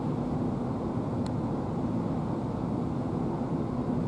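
Steady low rumble of a four-engined Airbus A380 airliner passing high overhead, heard from the ground at long range. There is a faint click about a second in.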